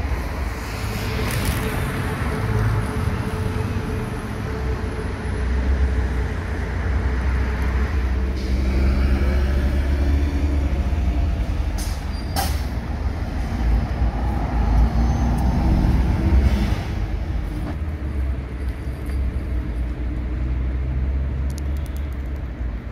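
Street traffic: cars and a city bus passing close with its engine running, over a steady low rumble. There is a brief sharp hiss about twelve seconds in, like a bus's air brake.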